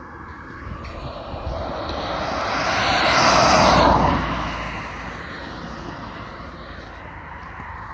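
Rushing noise of a passing vehicle, swelling to a peak about three to four seconds in, then fading away.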